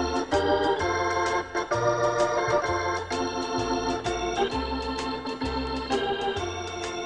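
Instrumental break of a gospel song: organ chords over a walking bass with a steady beat of drum or cymbal strokes.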